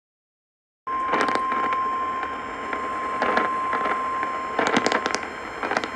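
NOAA Weather Radio warning alarm tone, one steady tone near 1050 Hz, starting abruptly about a second in after a short dead silence. It comes through a radio receiver with heavy static hiss and scattered crackles over it.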